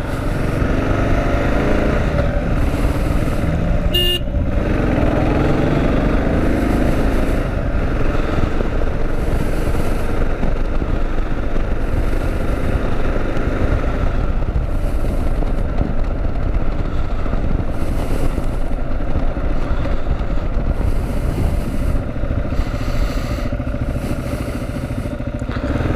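Kawasaki KLR650's single-cylinder engine running on the move, under steady wind noise on the rider's microphone. The engine note shifts in pitch about 4 to 7 seconds in, and there is a brief sharp click about 4 seconds in.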